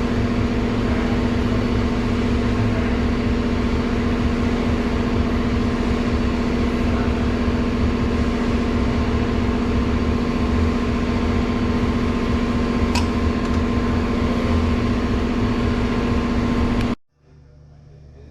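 Steady mechanical drone with a constant hum, loud and unchanging, that cuts off abruptly near the end.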